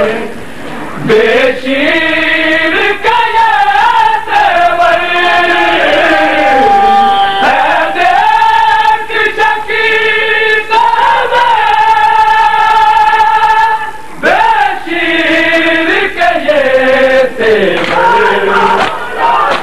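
A noha, a Shia mourning lament, chanted by a reciter in long held notes that slide between pitches, broken by short pauses for breath.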